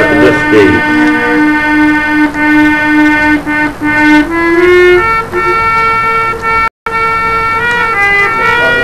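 Harmonium playing long held notes, several reeds sounding together, stepping up in pitch a little past midway, as an instrumental passage in a devotional naat. The sound cuts out for a split second near the end.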